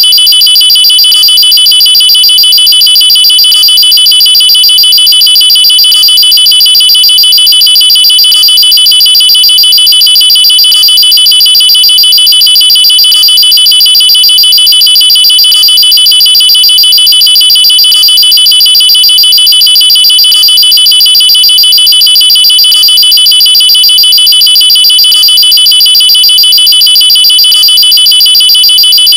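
Continuous loud, high-pitched alarm: a steady tone pulsing at a fast, even rate, with no rise or fall in pitch.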